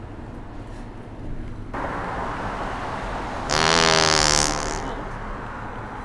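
A loud, buzzy fart sound from a prank fart-noise device, lasting about a second with a slightly falling pitch. It comes over a steady rush of passing traffic that begins about two seconds in.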